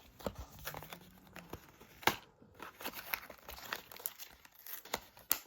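Toy packaging being torn and crinkled open by hand: irregular crackling and ripping, with a sharper rip about two seconds in and another near the end.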